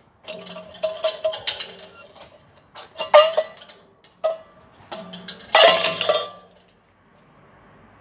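Things clinking and clattering close to the microphone in several bursts of handling noise, the loudest a little after the middle, then it goes quiet.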